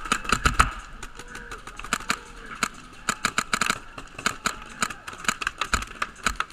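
Paintball marker firing in rapid strings of sharp pops, a few shots at a time. One cluster comes right at the start and a denser one around the middle.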